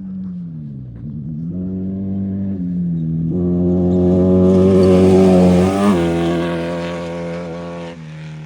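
Off-road race vehicle's engine running at high, steady revs, growing louder as it approaches. It passes about six seconds in with a drop in pitch, then fades away.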